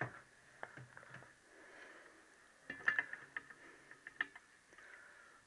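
Light metallic clicks and taps of tools and engine parts being handled on a workbench, with a small cluster of them about three seconds in and another just past four seconds.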